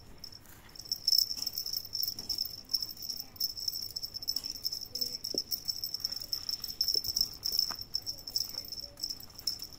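High-pitched insect trilling, steady with a fast pulsing, that drops out briefly about half a second in; a few faint taps underneath.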